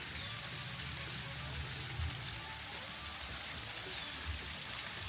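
Steady hiss of water running and splashing in a playground waterway, with a couple of low bumps about two and four seconds in.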